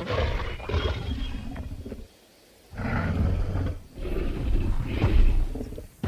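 Tyrannosaurus rex roar sound effect, roaring three times: a long roar, a brief silence about two seconds in, then two more roars.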